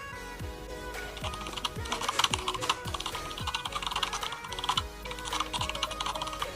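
Typing sound effect: rapid computer-keyboard clicks that grow dense about a second and a half in, over background music with a steady beat about twice a second.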